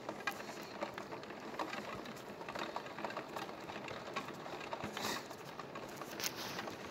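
Steady rain, a continuous hiss dotted with the small ticks of individual drops, with two brief louder hisses near the end.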